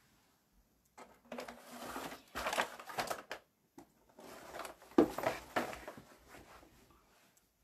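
Handling noise: rustling and clattering close to the microphone in two spells, with a sharp knock about five seconds in.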